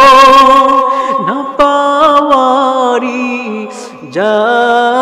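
A man singing a Bengali Islamic gojol (devotional ghazal). He holds a long wavering note at the end of a line, then sings on, starting a new phrase about four seconds in.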